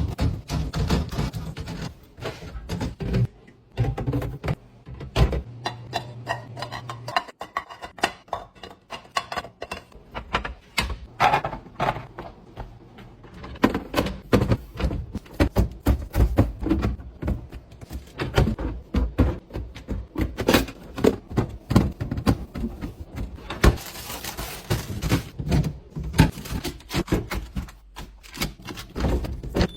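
Close-miked restocking sounds: a quick, irregular run of clicks, taps and thunks as plastic and glass containers, bottles and packages are handled and set down on fridge shelves, with a short stretch of hiss toward the end.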